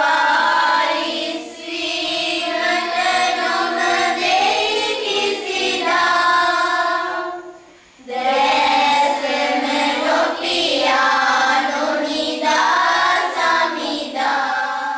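A group of voices singing together as the soundtrack, with a short break about seven and a half seconds in before the singing resumes.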